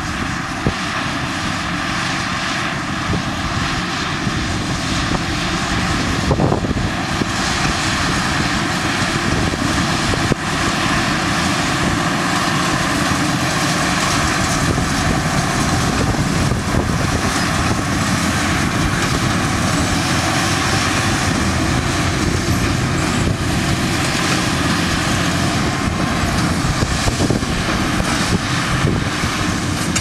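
Fendt 942 tractor's engine working under load while pulling a Massey Ferguson 2290 large square baler, with the baler's pickup and plunger running: a steady, loud machine noise that gets a little louder about ten seconds in.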